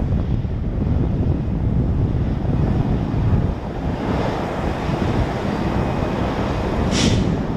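Low, steady rumble of an Airbus A319's CFM56 jet engines on the landing rollout, mixed with wind buffeting the microphone. A short hiss about seven seconds in.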